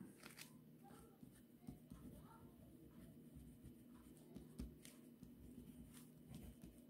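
Faint scratching of a ballpoint pen writing on paper.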